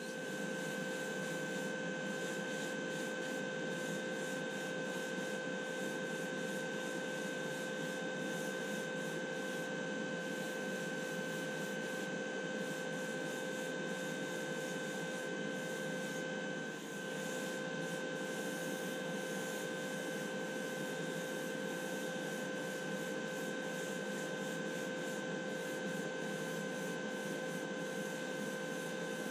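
Steady whirring hum with an even hiss from an airbrushing setup: a spray booth's extraction fan running while the airbrush sprays. The sound dips briefly a little past the middle.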